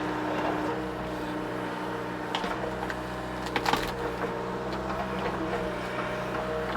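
Mini excavator's diesel engine running steadily while digging, with a few sharp knocks about two and a half seconds in and a louder cluster of clacks a second later.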